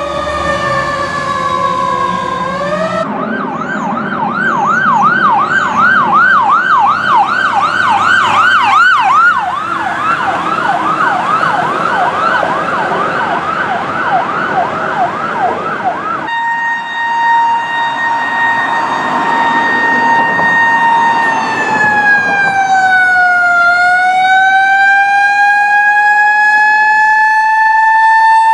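Fire truck sirens across a few cuts. First a siren falling in pitch. Then a fast yelp sweeping up and down about three times a second over the engine for some thirteen seconds. Then a slow wail holding one pitch, dipping about 23 seconds in and climbing back.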